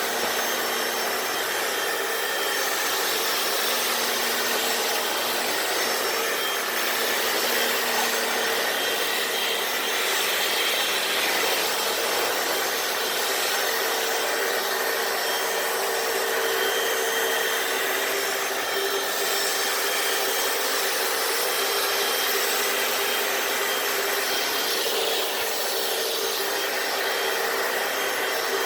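Hoover FloorMate hard-floor wet cleaner running steadily on a garage floor: its suction motor gives a constant whine while the spinning brushes scrub the wet surface.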